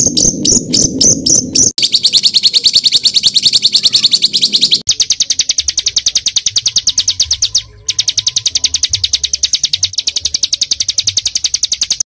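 Small songbird singing a dense, rapid 'tembakan' trill: very fast runs of high repeated notes, over ten a second. The trill breaks briefly about two seconds in, again about five seconds in and once near eight seconds.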